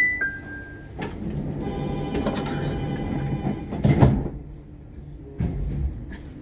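A two-tone door chime, then the sliding doors of a Nippori-Toneri Liner car running shut for about three seconds and closing with a thud about four seconds in. A shorter low rumble follows about five seconds in.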